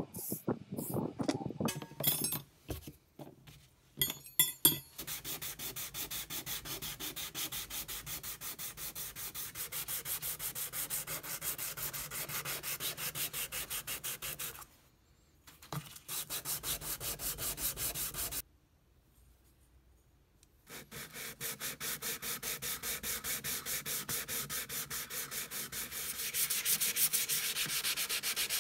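Hand abrading of a vintage steel vernier caliper during its restoration: fast, even back-and-forth rubbing strokes, pausing twice briefly, with a few scattered clicks at the start.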